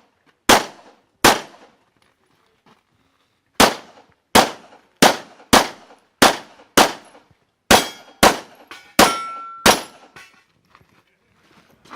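ZEV ISI Speedgun pistol fired in two strings: two shots, a pause of about two seconds, then ten shots at a steady pace of more than one a second. Several of the later shots are followed by a brief ringing tone.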